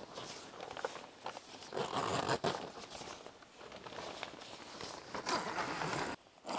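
Heavy-duty zip along the base of an awning tent being drawn closed to join the ground-sheet floor, in several uneven pulls, with the plastic floor sheet rustling as it is tugged along.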